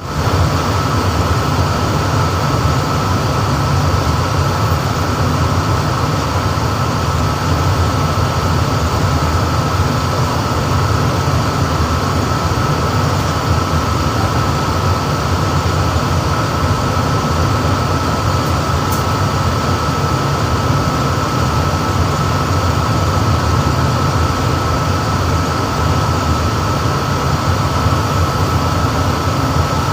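Machinery running steadily and loudly, with a constant high whine over a low rumble.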